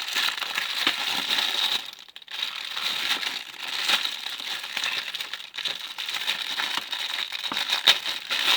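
Plastic packaging crinkling and crackling as it is handled and torn open, with short pauses about two and five and a half seconds in.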